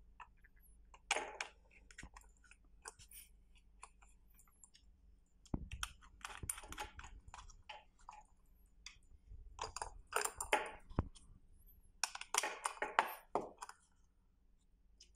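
Hard plastic fender parts clicking and scraping in irregular bursts as a screw and its mounting pieces are fitted onto an e-bike fender by hand.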